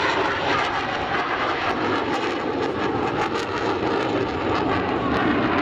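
Saab JAS 39 Gripen fighter in flight, its single Volvo RM12 turbofan jet engine making a steady, loud rushing rumble.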